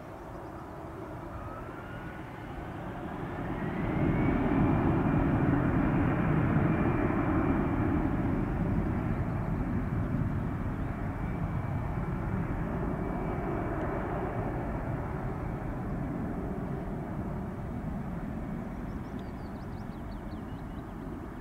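Airbus A319-111's twin CFM56-5B turbofan engines spooling up to takeoff thrust. A whine rises in pitch over the first few seconds as the engines get loud. The steady jet engine noise then slowly fades as the airliner accelerates away down the runway.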